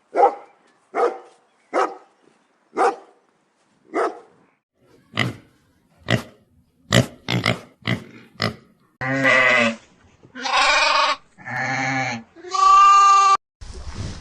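Farm animal calls: a string of about a dozen short calls, then four longer bleats of about a second each.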